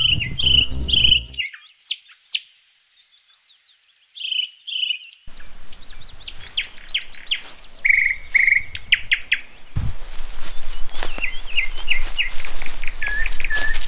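Several small songbirds chirping and singing, with many quick repeated notes and short trills.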